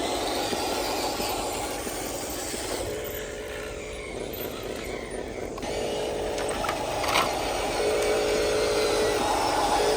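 Electric motor and gearbox of a radio-controlled toy truck running, with a steady whine that comes and goes in spells. A single click is heard about seven seconds in.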